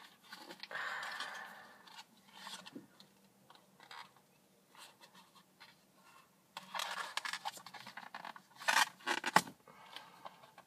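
Fingers scratching and picking at the packaging of a small makeup palette, trying to get it open: scraping in bursts with scattered small ticks, and two sharp clicks near the end.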